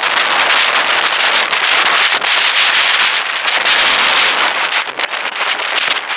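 Loud wind rush and buffeting on an action camera's microphone while riding a mountain bike along an asphalt road, with constant crackling, easing a little near the end.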